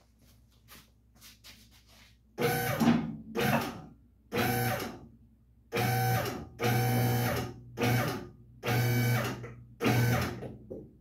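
Electric hydraulic pump motor of a two-post car lift, started and stopped in about eight short bursts of roughly a second or less each, as the truck is raised a little at a time.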